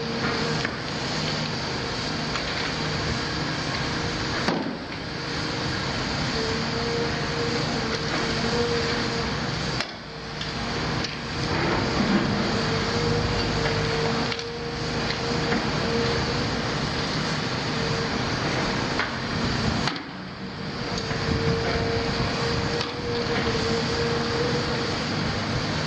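CAT 336F long-front demolition excavator running steadily, its Cat C9.3 diesel engine and hydraulic pumps giving a constant drone with a steady whine over it. The sound dips briefly several times, about every five seconds.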